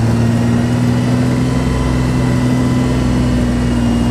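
Small vehicle engine running at a steady, even pitch while driving along, with no change in speed.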